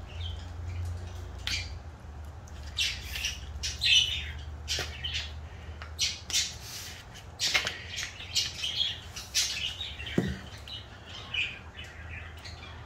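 Salt shaken from a round canister onto raw fish pieces in quick, short scratchy bursts, with fingers rubbing it into the fish on a paper plate.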